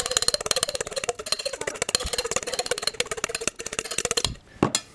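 A fork beating two raw eggs in a stainless steel bowl: quick, even clicks of the fork against the metal with the bowl ringing, stopping about four seconds in.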